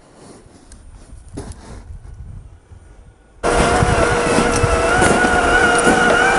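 Faint rustling and ticks, then about three and a half seconds in, the 55-turn brushed electric motor and gears of a Tamiya CC-01 RC car start abruptly, whining steadily at speed with a slightly wavering pitch over noisy chassis rattle.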